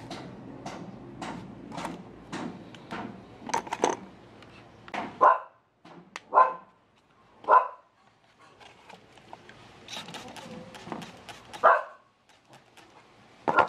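A dog barking about five times, single sharp barks a second or several seconds apart. In the first few seconds, faint regular clicks come about every half second.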